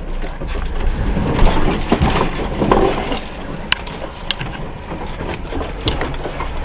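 A vehicle driving on a rough forest track: a steady low rumble with uneven crunching and a few sharp knocks in the middle.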